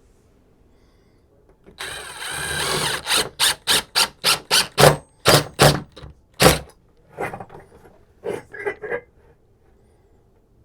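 Cordless drill driving a screw through a floating-shelf bracket into a wall stud. It runs steadily for about a second, then in a quick series of short trigger bursts as the screw seats, with a few lighter bursts afterwards.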